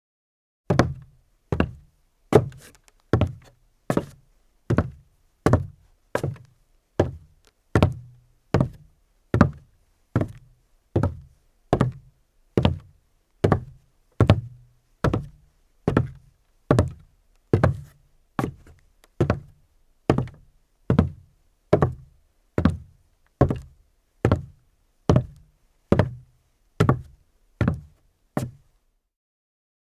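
Footsteps in rubber deck boots, a slow, even walking pace of about one heavy, knocking step every 0.8 seconds. The steps stop shortly before the end.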